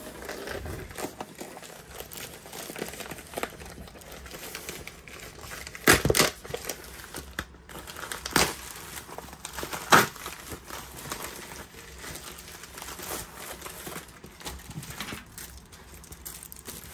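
Black plastic mailer bag crinkling and rustling as it is handled and pulled open, with three louder sharp crackles about six, eight and a half and ten seconds in.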